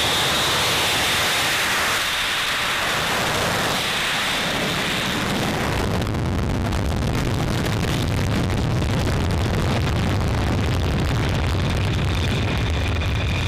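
Dassault Rafale fighter's twin Snecma M88 jet engines at takeoff power on the takeoff run: a steady, loud rushing noise with a high whine on top, and a deeper rumble coming in about halfway through.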